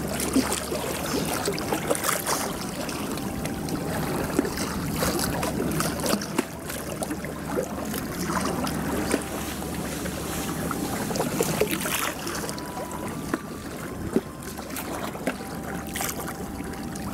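Seaside night ambience at the water's edge: continuous washing of sea water and wind on the microphone, with scattered small clicks and a low steady hum that weakens midway and comes back near the end.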